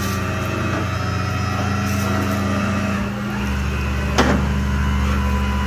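Rollback tow truck running its bed hydraulics, a steady engine-and-pump drone that shifts lower about three seconds in. A single sharp click sounds a little after four seconds.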